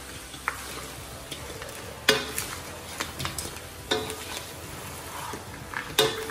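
Crab and prawn pieces stir-fried in an aluminium wok over a steady sizzle, a metal spatula scraping and knocking against the pan. Sharp strikes about two, four and six seconds in are the loudest.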